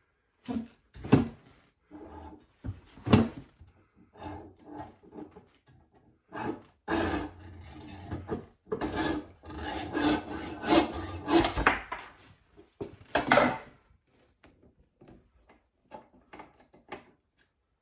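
Hacksaw cutting a small brass piece held in a bench vise: scraping strokes, a few at a time at first, then a steady run from about seven to thirteen seconds in. A few light clicks follow near the end.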